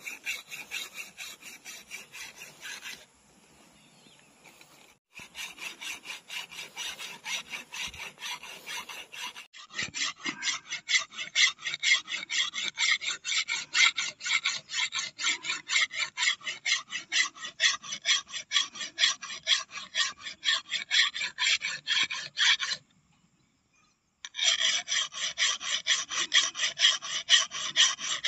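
Round chainsaw file rasping along the edge of a brush-cutter's steel blade in quick back-and-forth strokes, about two or three a second, sharpening it. The strokes pause twice briefly.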